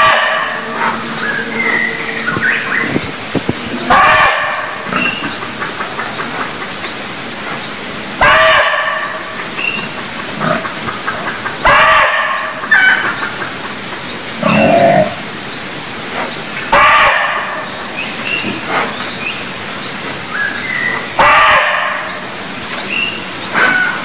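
Barking deer (muntjac) giving loud, short barks, one about every four seconds, with fainter calls in between. A high, rising chirp repeats steadily about every two-thirds of a second behind them.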